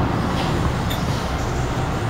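MTR M-Train electric multiple unit running at speed, a steady rumble of wheels on rails and running gear heard from inside the carriage, with a short high tick about a second in.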